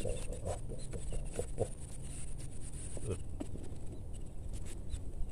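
Grass and weeds rustling and crackling as a big snakehead is dragged out of them by hand, with many short crackles over a steady low rumble of wind on the microphone.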